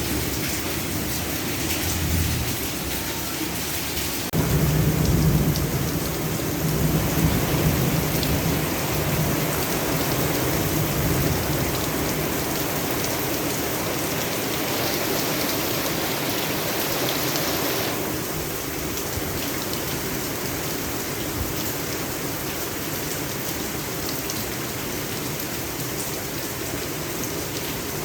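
Heavy rain pouring steadily throughout. About four seconds in, thunder breaks with a sudden low rumble that rolls on for several seconds before fading.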